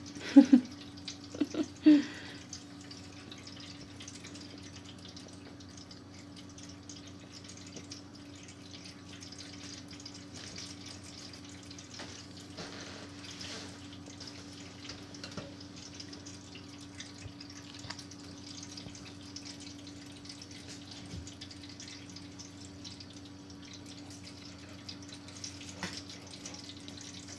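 Drinkwell pet fountain running: a steady low pump hum under the continuous trickle of its water stream. A few short, loud sounds come in the first two seconds.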